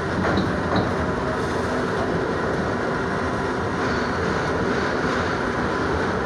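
R62 subway car running through a tunnel, heard from inside the front car: a steady rumble and rattle of steel wheels on the rails, with two short high squeaks under a second in.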